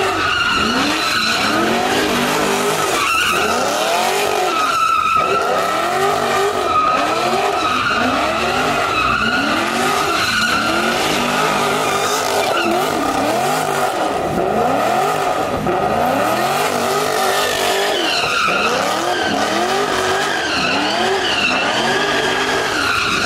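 A car doing donuts: its engine revs up and down about once a second while the rear tyres squeal without a break as they spin and smoke.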